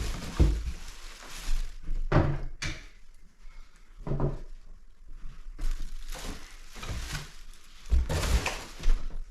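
Parts of a flat-packed cat tree being taken out of the box and set down: a string of irregular thunks and knocks, with rustling of packaging between them.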